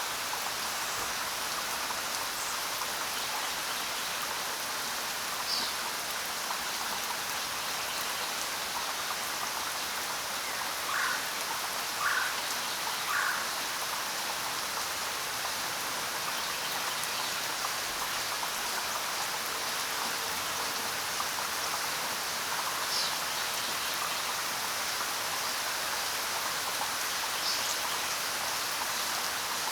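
Steady rain falling, an even hiss of drops without thunder. A few brief faint calls sound over it, three in quick succession near the middle and a few thin high chirps elsewhere.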